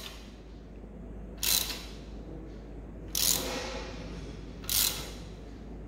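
Socket ratchet on the crankshaft snout of a 2JZ-GTE engine, turning the bare crankshaft by hand. The pawl clicks in three short runs about a second and a half apart as the handle swings back. The crankshaft turns freely with no binding.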